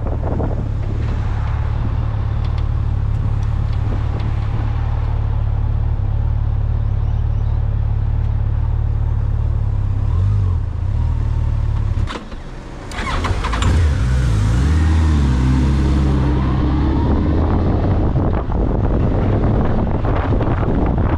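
A vehicle engine running steadily while riding. About twelve seconds in the sound drops away briefly, then the engine pitch rises and falls for a few seconds as it pulls away again before settling into a steady run.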